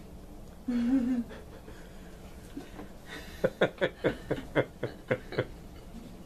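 A woman laughing: a brief hum near one second in, then a run of short laughing breaths, about four a second, lasting roughly two seconds.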